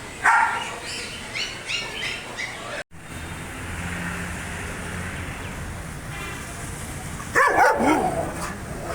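Dogs barking in separate short recordings. A loud bark comes just after the start, then a run of short high calls. After a sudden cut there is a steady low background, then another loud bark with a sliding pitch about seven and a half seconds in.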